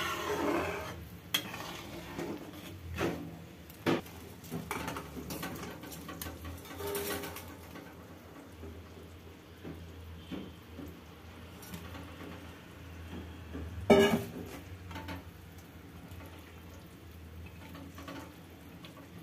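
A perforated steel ladle stirring thick kadhi in a steel kadhai, scraping and knocking against the pan in a few sharp metal clinks. The loudest clink comes about 14 seconds in. A steady low hum runs underneath.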